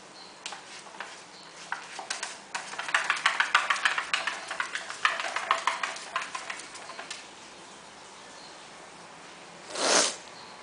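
A small dog's claws scratching rapidly at a plastic pee pan, a flurry of quick strokes several a second that builds and then stops about seven seconds in. Near the end there is one short, loud rush of air.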